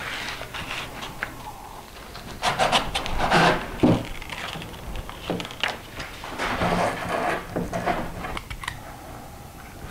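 Rubbing and scraping of hands pressing non-slip grip tape onto a plywood track-saw jig, in a few bouts of strokes, with several light knocks as the wooden jig is handled on the bench.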